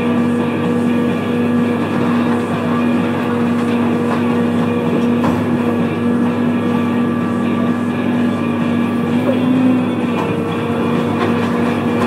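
Diesel engine of a John Deere excavator running at a steady working speed, a constant loud hum with a slight rise and dip in pitch about ten seconds in.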